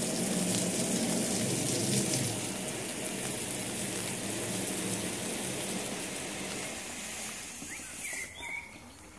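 Water spraying onto and running down a window pane: a steady hiss that gradually dies away once the water is turned off. A bird chirps a few times near the end.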